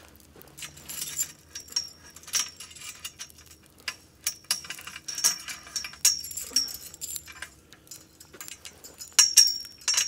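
Metal clinking and jingling from a campfire cooking tripod's chain as the hanging grate is lowered and let out link by link, with a quick run of clinks near the end.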